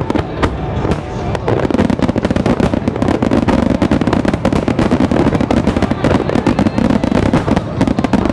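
Finale starmine firework barrage: many shells bursting in quick succession, making a continuous rattle of bangs and crackles. Music from the show plays underneath.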